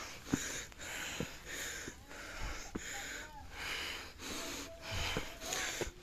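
A person breathing hard and fast close to the microphone, in quick, even breaths, winded from a steep climb. A few light knocks come in between.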